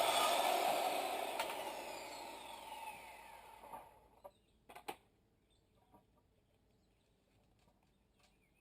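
Electric power saw winding down after a cut in wood, its blade coasting to a stop with a falling whine over about four seconds, followed by a few short knocks.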